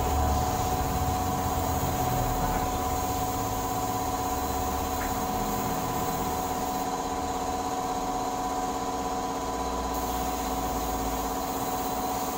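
Compressed-air paint spray gun hissing while spraying, over a steady motor drone with several fixed tones. The highest part of the hiss eases for a few seconds past the middle.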